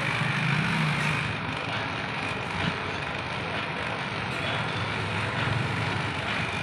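Handheld corded electric vibrating massager running with a steady buzzing hum, its low tone wavering as it is pressed against the face and scalp.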